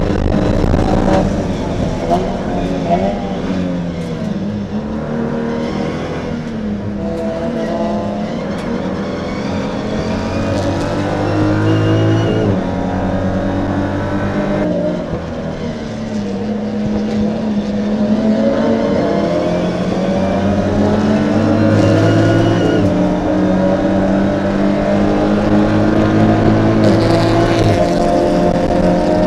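BMW M235i Racing's turbocharged straight-six engine heard from inside the cabin at race pace. The pitch climbs through the gears, drops suddenly at each upshift, and falls away under braking before climbing again, several times over.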